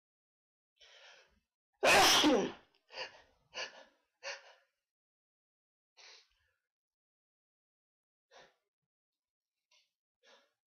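A person sneezes once, loudly, about two seconds in, after a short in-breath. Three quick, quieter breaths follow, then a few faint ones.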